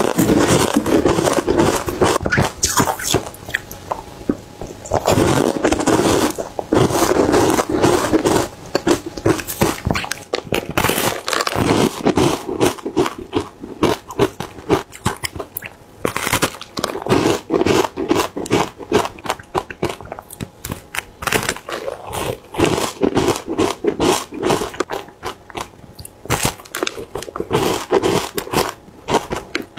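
Bites into large chunks of frozen matcha ice, close to the microphone: a dense, continuous run of crunches and cracks.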